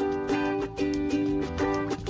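Background music: a light, strummed plucked-string tune with a steady rhythm.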